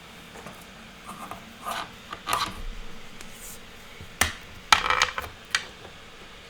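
Handling noise on a desk: a few scattered clacks and short scraping rubs, in one cluster about two seconds in and a louder one around four to five seconds in.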